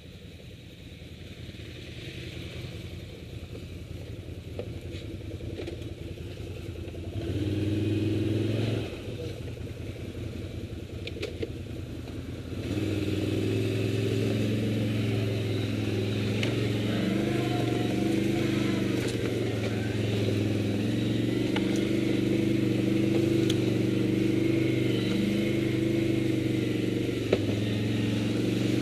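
Quad-bike (ATV) engine running: quiet at first, it swells about seven seconds in and drops back, then from about thirteen seconds runs louder and steadily under throttle, its pitch wavering as the quad works along a muddy rutted track.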